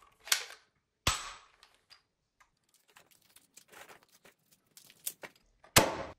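Plastic toy foam-dart blaster being handled: two sharp plastic snaps in the first second or so, then light clicking and rattling of foam darts and plastic parts, and another sharp snap near the end.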